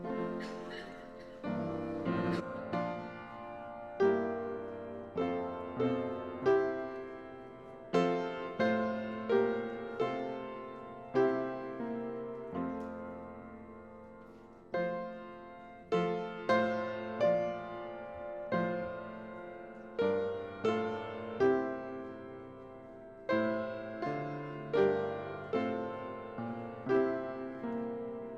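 Solo piano music: slow chords struck one after another, each left to ring and fade.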